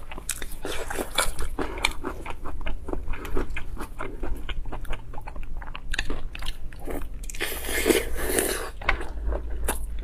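Close-miked eating: rapid, crisp crunching and chewing of food, with a longer, denser stretch of crunching about eight seconds in.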